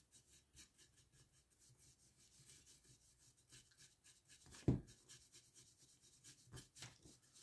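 Paint brush bristles dry-brushing the spiny edges of a plastic miniature: quick, faint, repeated scratchy strokes of a near-dry brush. One louder tap comes about two-thirds of the way through.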